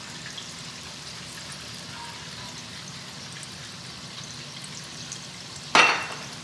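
Corn tortilla frying in warm canola oil with a steady low sizzle, while enchilada sauce is poured into a pan. A single sharp knock with a brief ring near the end.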